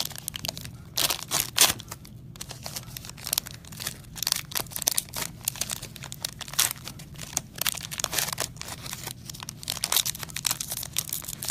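Wrapping on trading card packs crinkling and tearing as the packs are handled and opened, an irregular run of sharp crackles throughout.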